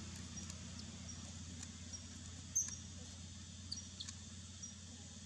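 A newborn monkey giving a few short, high-pitched squeaks, the loudest about two and a half seconds in, over a steady low hum and faint regular ticking.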